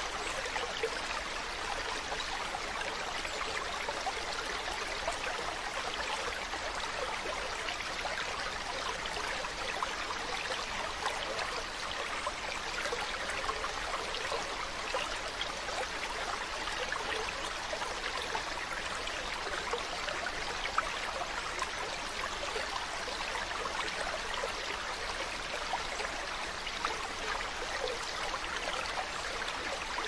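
Flowing water running steadily, the sound of a stream, without pause.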